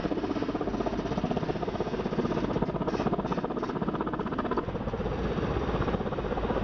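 Helicopter running with a rapid, even rotor chop. There is a brief dip in level about four and a half seconds in.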